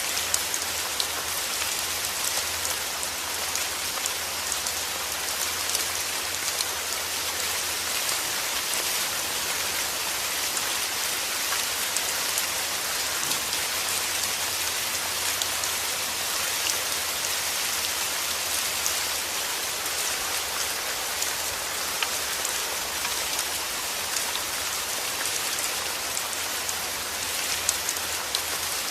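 Steady rain falling: a dense, even hiss with many individual drops ticking through it, and a faint low rumble underneath.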